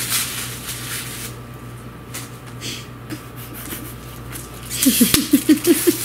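Rustling and crinkling of gift wrap as a wrapped present is handled and opened, then near the end a quick burst of laughter, rapid short pulses over louder paper noise.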